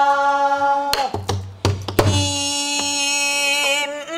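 Pansori singing: long, steady sung notes held out, with sharp strokes on a buk barrel drum marking the beat about a second in and twice around two seconds.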